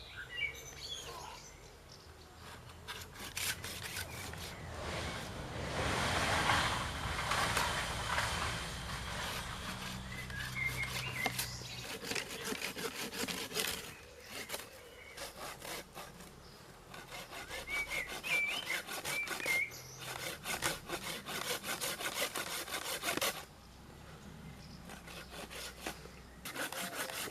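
Hand pruning saw cutting through wood: runs of rapid back-and-forth strokes with short pauses between them.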